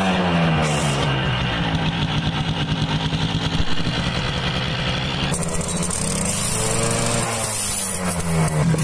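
Suzuki AX100 single-cylinder two-stroke motorcycle engine running steadily. Its speed sags about six seconds in and picks up again near the end.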